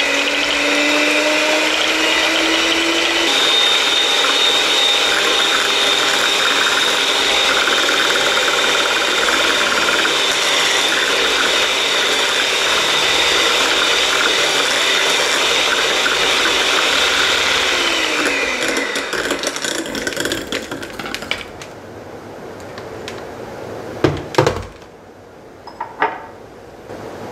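Electric hand mixer running at high speed, its beaters whipping heavy cream in a glass bowl toward soft peaks, with a steady motor whine. The motor winds down and stops about two-thirds of the way through, followed by two sharp knocks near the end.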